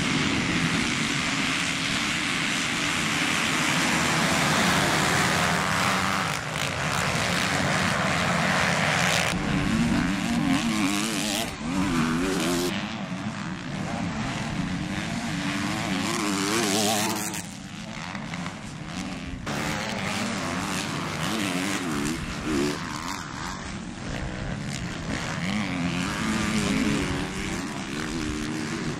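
A pack of motocross bikes pulling away from the start gate together, a dense wall of engine noise, then single dirt bikes revving up and down through the gears as they ride past, changing abruptly several times.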